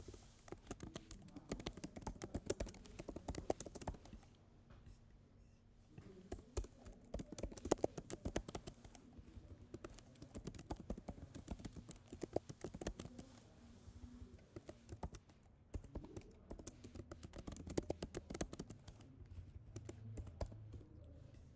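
Computer keyboard being typed on in quick, irregular runs of keystrokes, faint, with a short lull about five seconds in.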